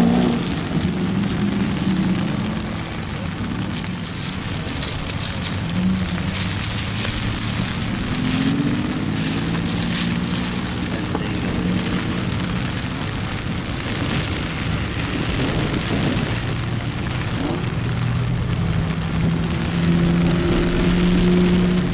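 A convoy of supercars and hypercars driving on a soaking wet track. Several engines run and rev, one engine note rises about eight seconds in, and a steady hiss of rain and tyre spray sits under them.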